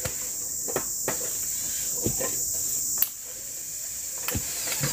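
Forest insects droning steadily in a high band that cuts off suddenly about three seconds in. Over it come several sharp knocks of a machete chopping a wooden pole.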